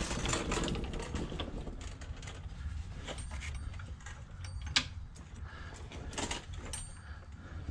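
Scattered clicks and light metallic knocks of hands and tools working under a car as a clutch assembly is lifted into place, the sharpest knock about five seconds in, over a low steady hum.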